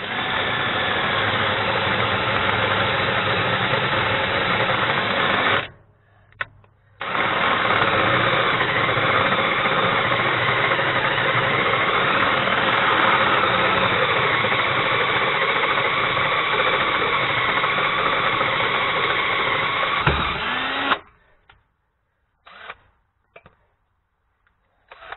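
Cordless drill running under load, boring a larger step-up hole through the steel frame rail of a Ford F53 motorhome chassis. It runs steadily for about six seconds, stops briefly, then runs about fourteen seconds more before stopping. A few faint clicks follow.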